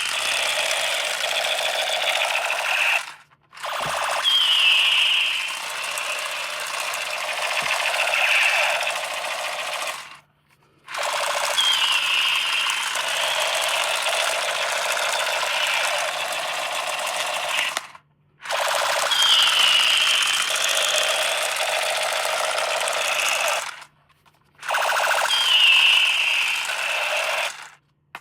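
A battery-powered toy's small motor and mechanism buzzing and rattling in runs of several seconds, stopping briefly between runs. Each run opens with a short, high, falling tone.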